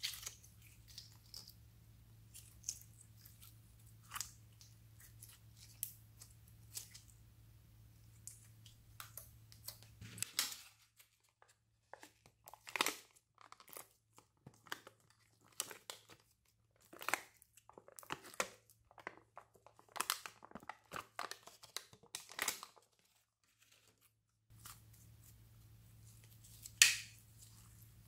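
Slime being squeezed, kneaded and stretched by hand, making irregular sticky pops and crackles, with a sharper pop near the end.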